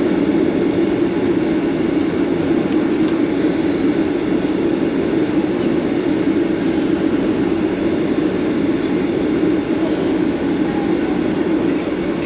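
Steady cabin noise of a Boeing 737-800 taxiing, with its CFM56-7B jet engines running, heard from a window seat inside the cabin.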